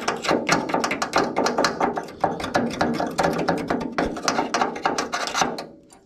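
A hand tool knocking and scraping at rusted sheet metal in a truck's tail panel: a fast, irregular run of sharp clicks and rattles that stops near the end.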